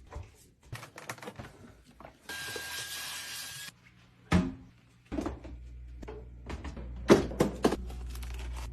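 Items and containers being handled and set down while a fridge is restocked: a scatter of clicks and knocks, the loudest a few sharp knocks in the second half. About two seconds in comes a steady hiss lasting over a second, and a low hum comes and goes underneath.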